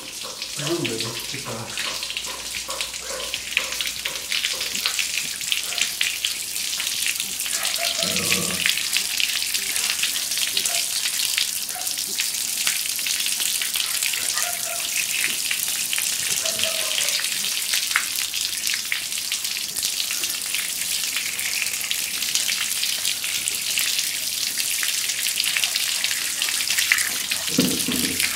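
Tap water running steadily from a wall faucet and splashing onto a wrist and a wristwatch, a continuous hiss.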